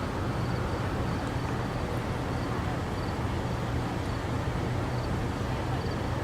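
Steady low rumble and hum of outdoor background noise, with a faint high chirp repeating about once a second.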